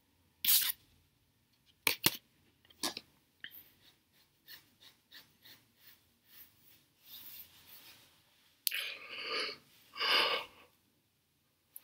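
A person breathing close to the microphone in a small room: a short breath just after the start and two longer exhales or sighs near the end. There are a few sharp clicks about two and three seconds in, with faint scattered ticks between.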